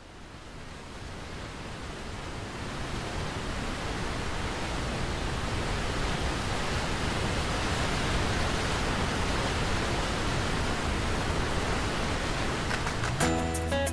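Steady rushing of a waterfall, fading in over the first few seconds and then holding. Plucked guitar music comes in near the end.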